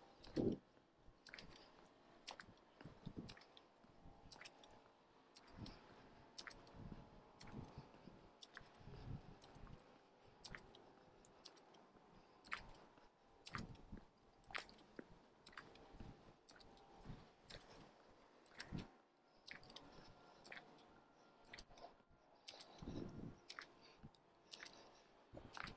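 Faint footsteps on asphalt picked up by a carried action camera, a soft knock about once a second.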